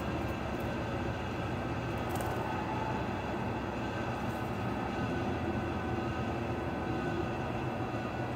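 Steady mechanical hum made up of several constant tones, with a few faint high ticks about two and four seconds in.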